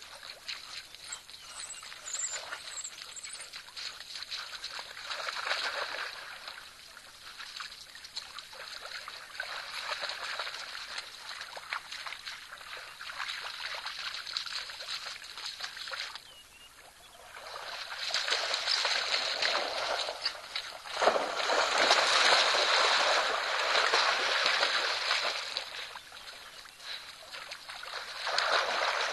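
Water splashing and sloshing as African wild dogs and an impala swim and wade through a waterhole. It comes in uneven surges, with a brief lull just past halfway, and is loudest in the second half.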